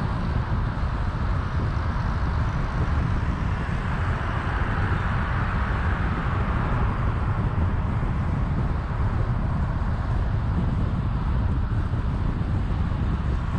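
Steady road noise from a car driving along an expressway: a low rumble of tyres and wind, with a broader hiss that swells briefly about midway, as from passing traffic.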